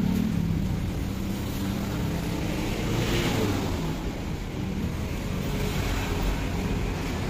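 Road traffic on a highway: a steady rumble of passing cars, with one vehicle swelling louder about three seconds in.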